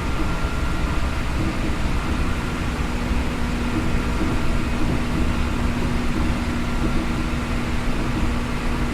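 Seibu New 2000 series electric train running at steady speed, heard from inside the car: a constant low rumble of wheels and running gear with a steady hum over it.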